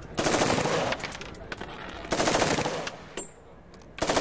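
Arms Tech Compak-16 short-barrelled carbine firing short full-automatic bursts, each under a second long. The first comes just after the start, the second about two seconds in, and the third begins near the end.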